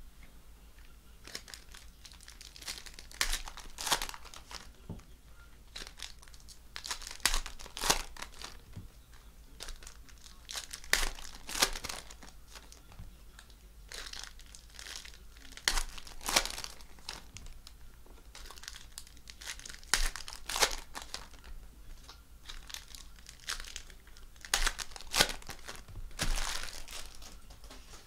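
2019 Prizm football card pack wrappers being torn open and crinkled, in short bursts every few seconds.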